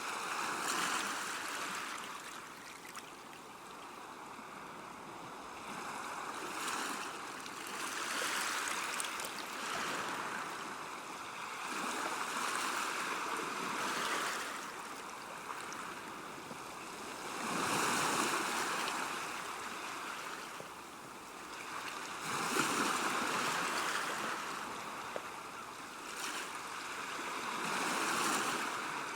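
River water washing at a bank: a steady rush that swells and eases every few seconds.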